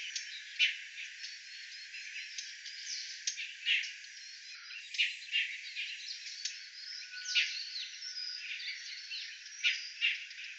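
Outdoor nature ambience of many birds chirping and calling over a steady insect-like haze. The sound is thin with no low end, as if the bass had been cut away.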